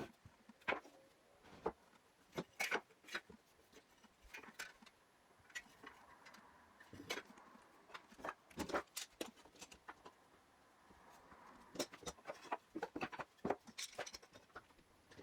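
Irregular light clicks and taps, some in quick clusters, from wooden leg parts being handled and set together during a glue-up.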